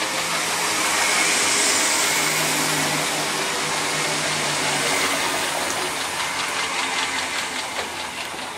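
ScotRail Class 318 electric multiple unit running past, its motors giving a steady hum under a loud rush of running noise. The wheels click rhythmically over the rail joints, most plainly near the end as the last car goes by.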